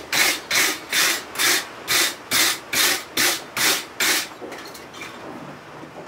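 Wooden-backed steel wire brush scrubbed back and forth over a forged railroad-spike hatchet head on the anvil: even, rasping strokes, about two a second, about ten in all, stopping about four seconds in.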